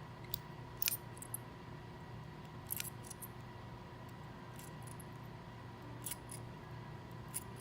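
Faint, scattered small metallic clicks and ticks of a precision screwdriver working on a butane lighter's adjustment valve cap, about eight at irregular intervals.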